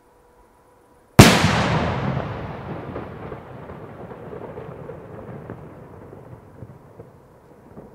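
A 40 g salute carried by a homemade 1 lb rocket bursting in the air: a single sharp bang about a second in, followed by a long rolling echo that dies away slowly over several seconds.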